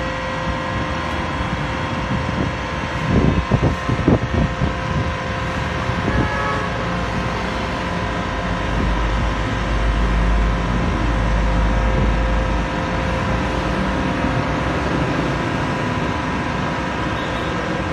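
Hydraulic power unit of a home-built truck tire press running steadily with a humming whine as it drives the hydraulic cylinder. A few irregular clattering knocks come about three to four seconds in, and a deeper, louder rumble from about nine to twelve seconds.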